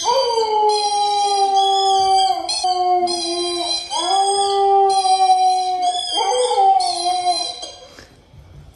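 Canine howling: a run of long, drawn-out howls, each held for a couple of seconds and sliding slightly down in pitch, with brief breaks between them. It fades out near the end.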